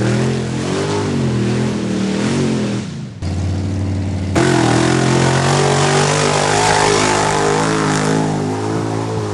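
Mud-bog race trucks' engines revving hard as they push through a mud pit, the pitch rising and falling. About three seconds in the sound breaks off and changes, and a steadier, loud engine note carries on from about four and a half seconds in.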